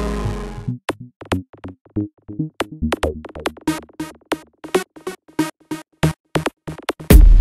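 Background electronic music. A held synth chord dies away within the first second, then sparse, evenly spaced drum-machine hits carry on alone, and the full beat with heavy bass comes back in near the end.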